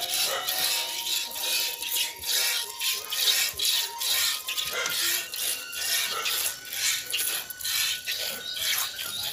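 Milk squirting from a cow's teats as she is milked by hand: a steady rhythm of short hissing squirts, about three a second.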